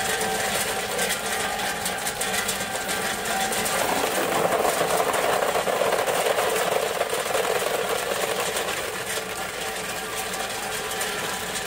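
Solid tube ice dropping from a 3-ton-a-day tube ice machine's outlet and clattering into a plastic basin as the machine harvests, over the steady running of the machine. The clatter grows louder about four seconds in and eases off again near the end.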